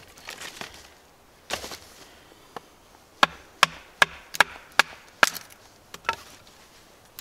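A wooden baton knocking on the spine of a Takumitak Takumi fixed-blade knife to split wood: about seven sharp knocks, a little over two a second, starting about three seconds in, after a brief rustle of handling.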